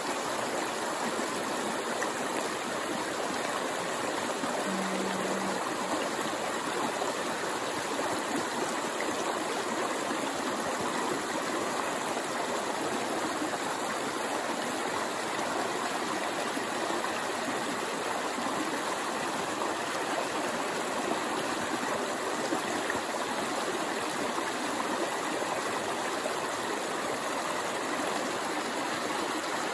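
Shallow rocky stream spilling over small cascades between boulders: a steady rush and babble of running water.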